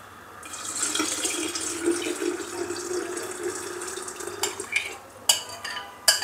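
Watery green-mango pulp poured from a glass bowl into a glass jug, a steady pour lasting about four seconds. It is followed by a few sharp clinks.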